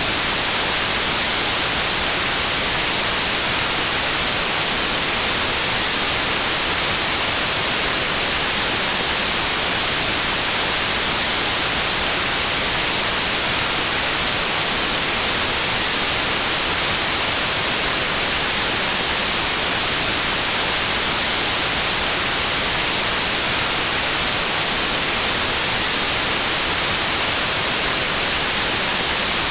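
Steady white noise: an even hiss, brighter in the treble, with no change in level or character.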